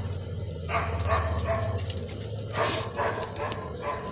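Short animal calls in two groups, about a second in and again near three seconds, over a steady low hum.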